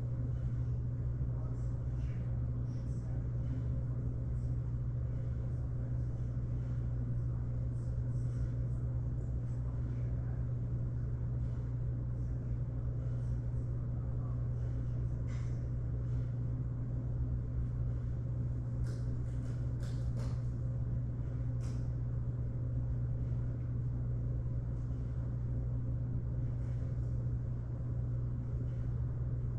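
Steady low mechanical hum of a running machine, unchanging throughout, with faint scattered ticks and clicks, most of them about two-thirds of the way through.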